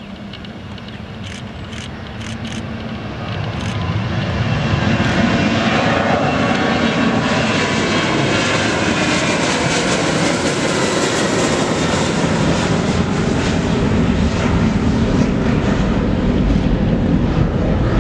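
Boeing 737-900ER's twin CFM56-7B turbofan engines at takeoff thrust as the airliner lifts off and climbs out. The jet noise grows louder over the first four seconds or so, then holds loud and steady, with a deep low rumble near the end.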